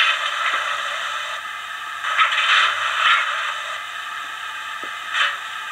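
Howes of Oxford sound decoder in a Hornby OO scale 'Merchant Navy' model steam locomotive, playing the hiss of a standing steam engine through the model's small speaker. The hiss swells into louder surges about two seconds in, again around three seconds, and once more near the end.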